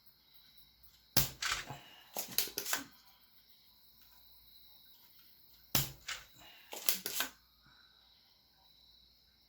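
Two quick clusters of hard plastic clicks and knocks from the TRS-80 Model III keyboard's key switches being pressed and handled, one about a second in and another past the halfway point.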